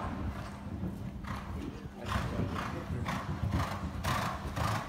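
A show-jumping horse cantering on a sand arena floor, its strides coming about twice a second and getting louder from about two seconds in as it comes closer.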